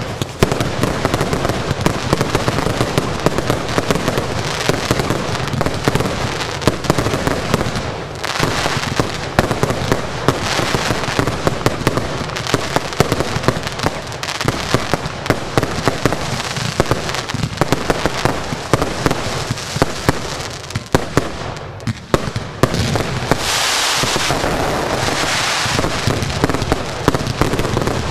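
Dense fireworks barrage: shots launching and bursting in an unbroken stream of bangs and cracks. Stretches of hissing crackle come about eight and ten seconds in, and a louder one comes near the end.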